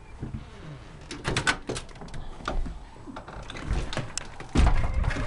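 Storm door latch and frame clicking and knocking as the door is opened and passed through, ending in a heavy low thud about four and a half seconds in.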